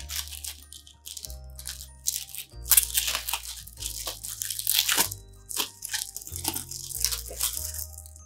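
Clear plastic wrapper crinkling and crackling in bursts as hands pull it open and slide out the fabric item inside, over background music with a steady bass line.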